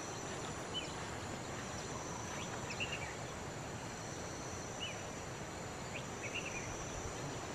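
Outdoor ambience: steady high-pitched insect drone with a few short bird chirps scattered through it.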